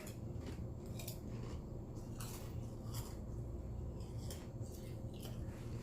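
Someone chewing crunchy potato chips close to the microphone: short, irregular crisp crunches about every half second, over a steady low hum.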